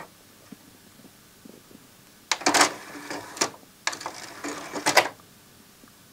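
The CD transport mechanism of an NAD C502 CD player makes two short mechanical whirring runs, each about a second long and opening with a click, as the player tries to start. The disc does not begin spinning.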